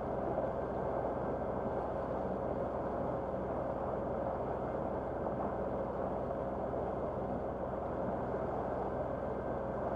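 A small sailing yacht's inboard engine running steadily while motoring, with a steady rushing noise over it.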